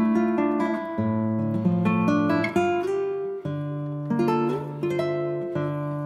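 Background music: acoustic guitar picking and strumming chords, with the chord changing every second or so.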